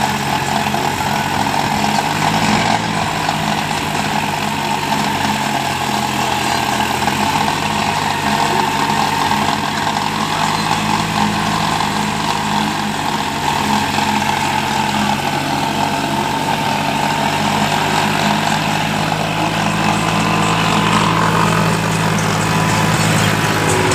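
New Holland 5510 tractor's diesel engine running steadily under load, driving a rotavator as it churns through soil and crop residue.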